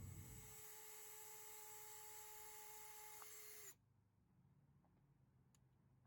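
A small electric motor runs with a steady whine for about three and a half seconds, then cuts off, its pitch dipping as it stops.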